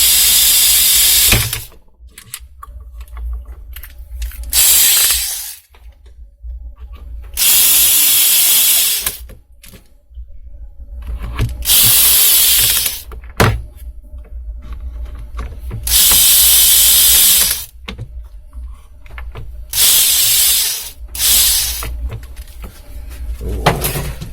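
Electric screwdriver running in repeated bursts of one to two seconds, seven in all, driving self-tapping screws into the clamp's housing, with small clicks between the bursts.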